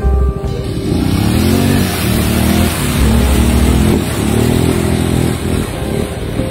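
Quad bike (ATV) engine revving up and down several times as it pulls through loose sand.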